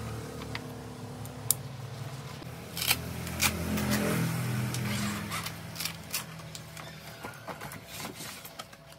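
Nylon straps and plastic buckles of a rooftop cargo bag being handled on car roof crossbars: several sharp clicks and rustles of the fabric bag. An engine hums in the background, louder in the middle.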